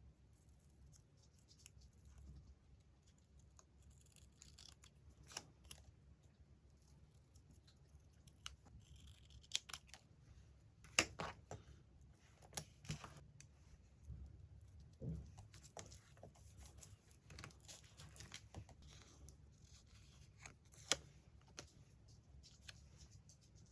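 Quiet paper-craft sounds: scissors snipping magazine paper, with scattered sharp clicks and short paper rustles.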